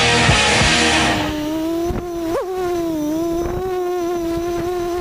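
Racing quadcopter's brushless motors and props whining steadily, with a quick throttle blip about two and a half seconds in. Rock music plays over the first second.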